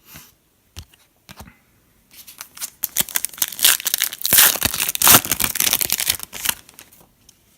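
A foil trading-card pack wrapper being torn open and crinkled. There are a few small rustles first, then about five seconds of dense tearing and crackling that peaks a little past the middle.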